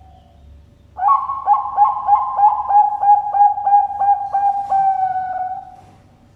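Zebra dove (perkutut bangkok) cooing its song: a quick run of about a dozen short notes, then one longer drawn-out note that fades away.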